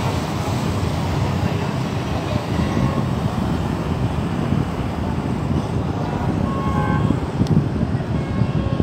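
Steady low rumble of city traffic, with a brief faint horn toot about seven seconds in.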